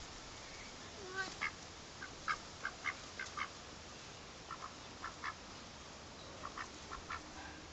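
White domestic duck giving short, soft quacks, many of them in quick runs of two or three.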